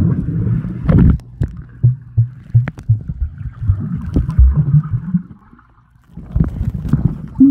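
Swimming-pool water heard from a camera held below the surface: muffled sloshing and gurgling with irregular knocks and thumps as swimmers move. It dips almost to quiet briefly about three-quarters through.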